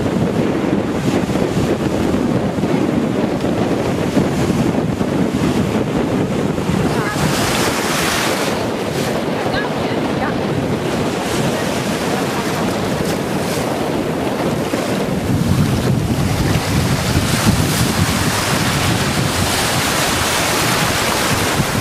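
Sea surf breaking and washing through shallow water, with heavy wind buffeting on the microphone. The wash swells louder about a third of the way in and again through the last several seconds.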